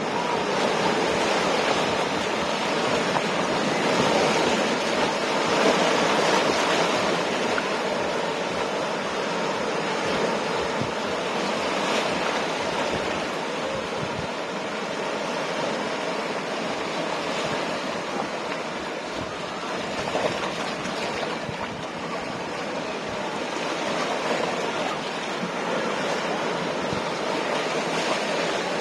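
Ocean surf breaking and washing onto the shore: a continuous rush that swells a few seconds in, eases, and builds again near the end.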